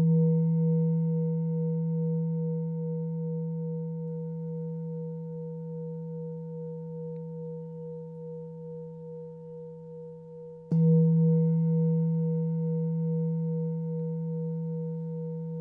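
Tibetan singing bowl struck and left ringing, a deep hum with a slow pulsing wobble that fades gradually. It is struck again about eleven seconds in and rings out once more.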